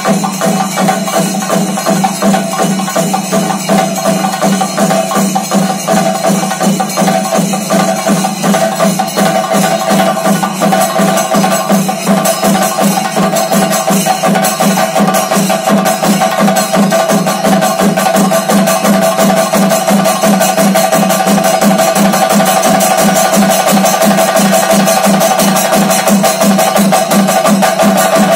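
Double thayambaka: Kerala chenda drums struck in rapid, unbroken rolls, with the bass chendas and ilathalam cymbals keeping time beneath.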